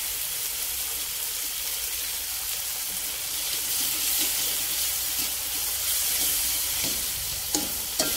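Onion, garlic and chilies sizzling in hot oil in a metal wok with a steady hiss as a metal spatula stirs them through the freshly added oyster and soy sauce. A few sharp knocks of the spatula against the wok come near the end.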